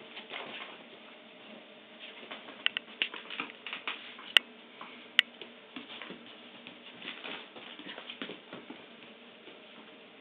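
A Jack Russell terrier and a cat scuffling in play on a rug: soft pattering and rustling of paws, with scattered light clicks. Two sharp clicks stand out, about four and five seconds in.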